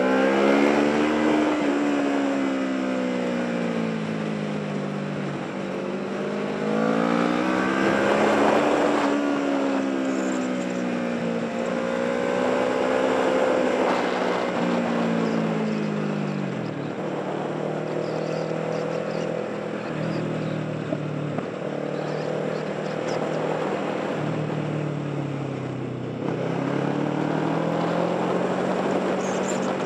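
Motorcycle engine running under way, its revs rising and falling several times as the rider accelerates and eases off through the bends, with a steady rush of wind noise.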